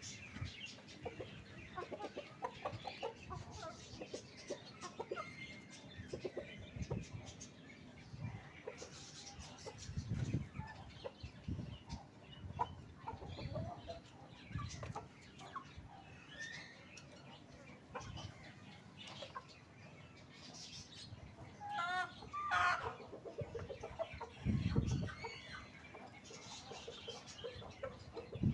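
Aseel chickens clucking and calling around the coops in short scattered calls, with a couple of louder wavering calls about two-thirds of the way through. A few low thuds come in between.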